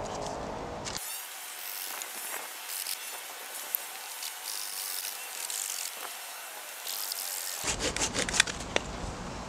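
Folding hand saw cutting through a wooden branch with steady rasping strokes, then a few sharp knocks near the end.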